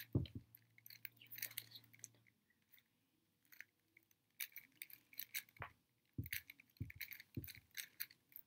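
A plastic 3x3 speedcube turned quickly by hand: rapid, irregular clicking and clacking of the layers as they turn, with a few soft low thumps.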